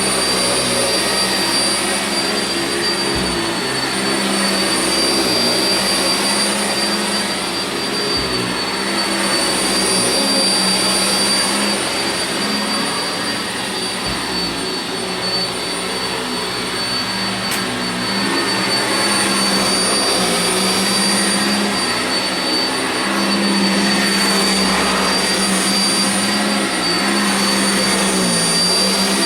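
Sanitaire SC679j upright vacuum cleaner running steadily on carpet, its motor giving a high whine over the rush of air, the pitch wavering slightly through the stretch.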